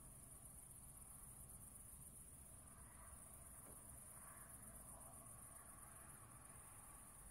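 Near silence: faint, steady, high-pitched chirring of crickets, with no thunder.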